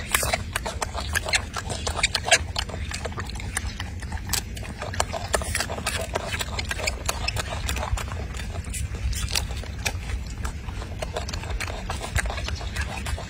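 Golden snub-nosed monkey eating a mandarin orange close up: a busy run of irregular wet clicks and smacks from chewing and handling the fruit, over a steady low rumble.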